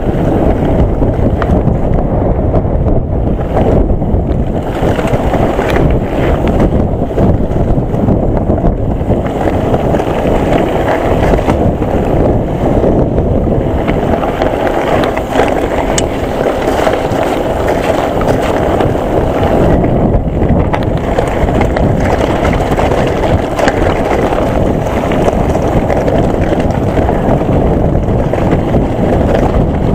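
Wind rushing over the microphone of a camera on a Nukeproof Mega mountain bike, mixed with the tyres rolling over a gravel track and a scatter of small clicks and knocks from stones and the bike.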